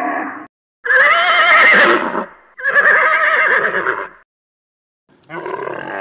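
An animal giving long, loud, wavering cries. One call trails off at the start, two calls of about a second and a half each follow, and a shorter one comes near the end.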